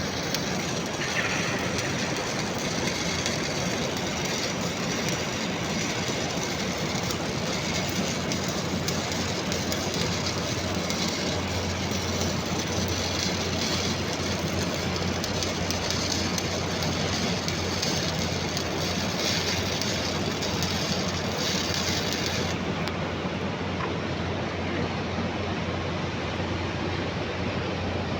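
Stick welding arc on stainless steel, a steady crackle and hiss as the electrode burns along the weld.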